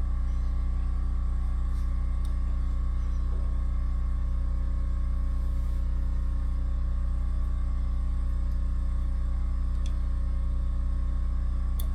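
Metal lathe's electric motor running steadily with an even low hum, with a couple of light clicks near the end.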